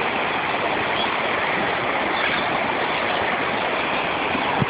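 Floodwater rushing steadily across a flooded road, a constant watery roar.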